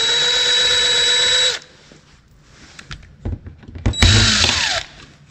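Cordless drill backing out the small screws of a plastic chrome trim ring around a dock light. It runs steadily and cuts off under two seconds in, then a few light clicks, then a second shorter run near the end that winds down in pitch as it stops.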